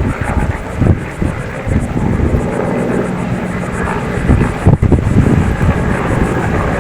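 An engine running steadily, with wind buffeting the microphone in irregular gusts.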